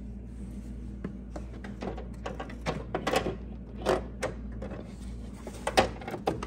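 Scattered light clicks, knocks and rustles of hands handling parts at the engine-bay firewall, over a steady low hum. The loudest knocks come about four and about six seconds in.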